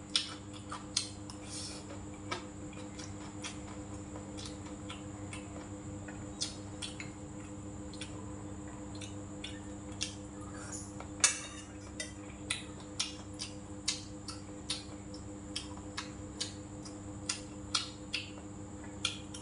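Eating sounds: scattered short chewing and mouth clicks, with occasional clinks of a spoon and chopsticks on a stainless steel bowl, the loudest about eleven seconds in. A steady faint hum runs underneath.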